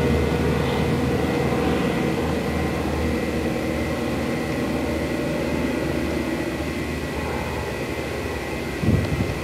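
Single-engine propeller tow plane at full takeoff power on an aerotow, pulling a glider into the air; its engine drone is steady and slowly fades as the pair climbs away. A short louder rumble near the end.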